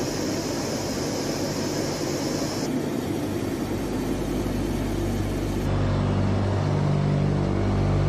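Steady cabin drone of a Tu-95-family four-engine turboprop aircraft in flight: a loud, even hum with a few deep steady tones. The sound changes abruptly about three seconds in and again near six seconds, where the deep tones grow stronger.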